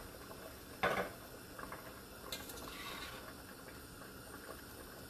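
A metal spoon stirring potato soup gently in a stainless steel pot, with one brief louder knock of the spoon on the pot about a second in; otherwise quiet.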